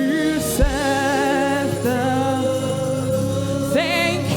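Gospel worship song: a singer holds long notes with vibrato over steady instrumental backing. There is a brief low thump about half a second in.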